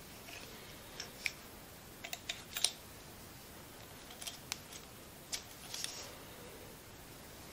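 Small irregular clicks and light taps of TIG torch parts being handled and fitted together by hand: a ceramic cup and collet parts going onto the torch head. The clicks come in short clusters, about fifteen in all.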